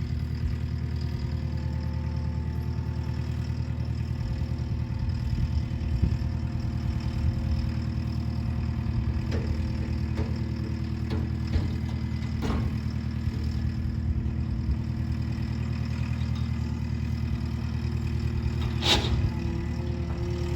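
An engine idling steadily, with a few sharp knocks and clanks over it, the sharpest one near the end.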